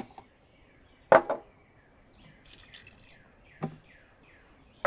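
Chicken stock poured into a food processor's feed tube, trickling and dripping, with a sudden loud clunk about a second in and a duller knock later. Birds chirp faintly in the background.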